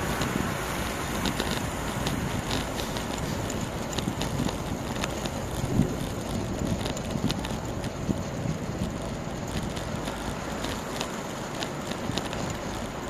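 Wind rushing over the microphone while riding a road bicycle, with steady tyre-on-road noise and scattered small clicks and rattles from the bike.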